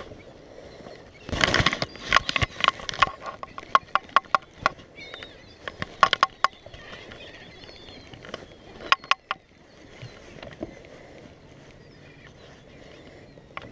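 Sharp clicks and light knocks from handling a baitcasting rod and reel, coming several a second for a few seconds and then scattered, after a brief rough rustle early on.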